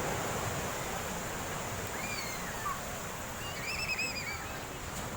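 Steady rush of ocean surf with wind on the microphone at high tide. Faint, high-pitched distant cries come through twice, about two seconds in and again near four seconds.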